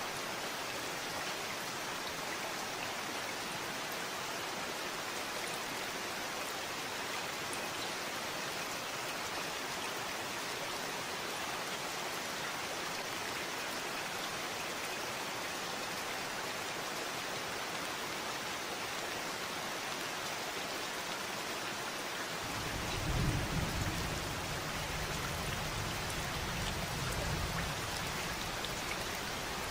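Steady rain falling, an even patter of drops. About three-quarters of the way through, a low rumble of thunder swells in and lasts several seconds.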